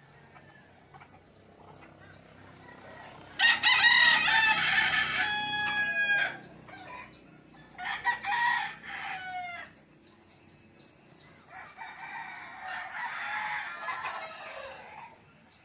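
Roosters crowing: a long crow about three seconds in, a shorter crow around eight seconds that drops in pitch at its end, then fainter, rougher calls near the end.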